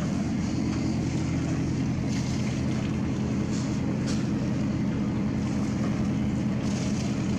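A sailing ship's inboard engine running steadily, a low even hum as the ship motors slowly under power.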